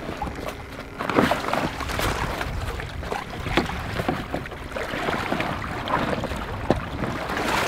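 Water splashing and sloshing as a waterproof fish landing mat is dipped over the side of a boat to wet it, with the mat's plastic-coated fabric crinkling in irregular small crackles, over a low wind rumble.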